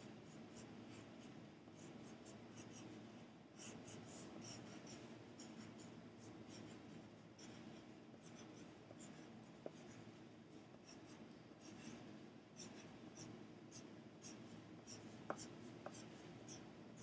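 Faint scratching of a drawing tool making many short strokes on thin cardboard, with a couple of light clicks in the second half.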